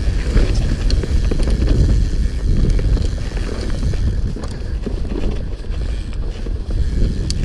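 Mountain bike riding a rough dirt singletrack: a steady low rumble of the tyres on the trail and wind buffeting the camera microphone, with scattered clicks and rattles from the bike.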